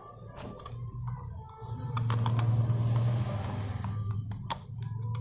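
Handling noise from a phone being moved about while recording: a low rumble of the microphone rubbing against cloth and hands, loudest in the middle, with scattered clicks and knocks of a plastic toy being handled.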